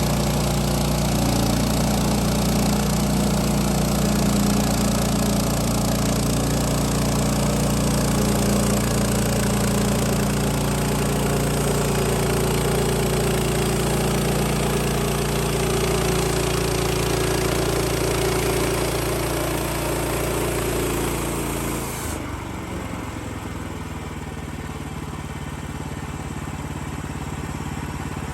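Petrol engine of a portable sawmill running steadily under load, with a high hiss over it. About 22 seconds in, the hiss stops abruptly and the engine runs on more quietly.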